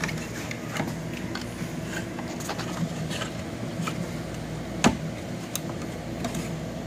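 Light clicks and taps of stiff plastic tool-changer carousel parts from a Bridgeport Torq-Cut 22 being handled and fitted together, with one sharper click about five seconds in, over a steady low hum.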